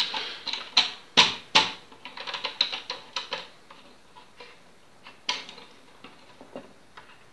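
Metal clicks, ticks and knocks from a plunge router's parallel edge guide being fitted into the router base. There are two sharp knocks just over a second in, a patter of small ticks after them, and another knock about five seconds in.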